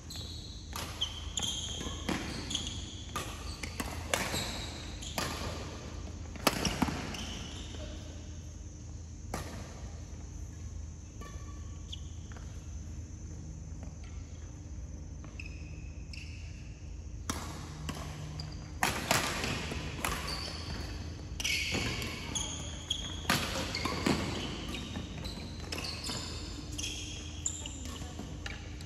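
Badminton rackets striking a shuttlecock in rally play: quick sharp hits, often under a second apart, with short squeaks among them. The hits come in two busy rallies separated by a lull of several seconds, over a steady low hum.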